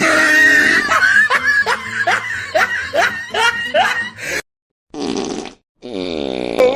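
Fart sound effects and laughter, spliced with abrupt cuts to dead silence: a run of quick, rising pulses, then a short noisy burst, then a low fart noise whose pitch dips and rises.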